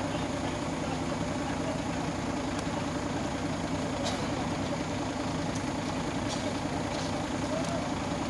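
Large truck's engine idling steadily at a low, even rumble.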